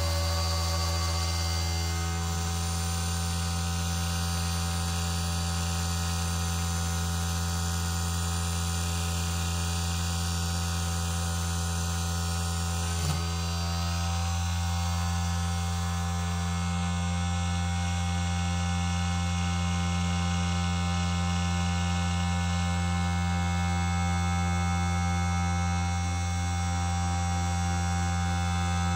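Small CNC1610 machine converted to an NC lathe running: a steady motor hum with several steady whining tones, and one brief click about 13 seconds in.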